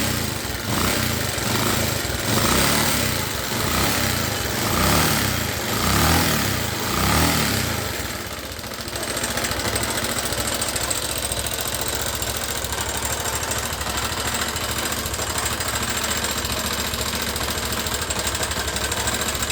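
2003 Bajaj Pulsar 150's single-cylinder four-stroke engine, just started on a newly fitted wiring harness, revved in a series of throttle blips for about eight seconds, then settling into a steady idle. The ignition is firing fine.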